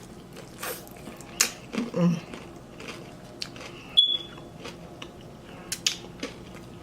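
Close-up chewing and biting of a snack, with scattered small crunches and mouth clicks. A brief high ringing tone sounds about four seconds in.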